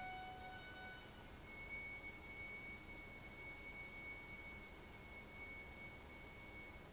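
Bowed cellos holding soft, high, pure notes. The chord thins out about a second in, leaving a single thin high note that is held and fades away near the end.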